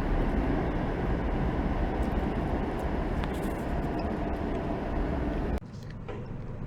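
Steady vehicle road noise, a low rumble with hiss above it, that cuts off abruptly about five and a half seconds in to a quieter steady rumble.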